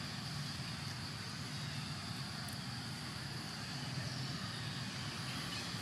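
Steady outdoor background noise: a low rumble with a thin, steady high whine above it.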